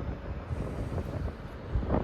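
Wind buffeting the microphone, a low, uneven rumble that swells near the end.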